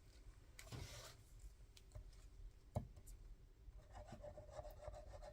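Faint paper handling as craft-table scraps are cleared: a brief rustle about a second in, a soft knock near three seconds, and light rubbing near the end.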